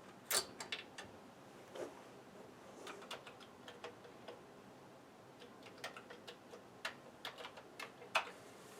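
Scattered light clicks and taps at uneven intervals, the sharpest about a third of a second in and again near the end: hands at a Commodore 64 setup, inserting a disk and typing the load command.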